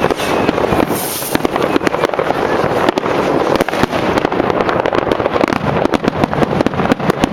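Many aerial fireworks bursting at once: a dense, continuous barrage of cracks and crackling, with a short hiss about a second in.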